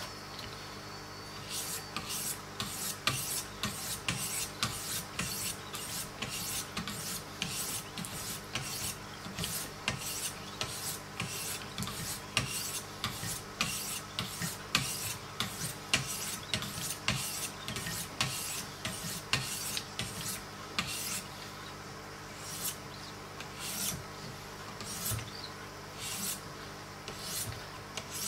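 Wicked Edge sharpening stones stroked against the steel edge of a Hogue EX-03 knife clamped in the jig, a quick rasping scrape about three times a second. Near the end the strokes become fewer and more spaced out.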